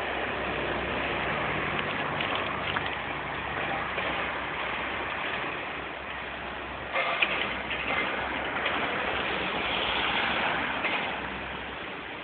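Steady engine noise from street traffic and demolition machinery, with a low hum. About seven seconds in a burst of clattering and crackling rises for a few seconds, then eases.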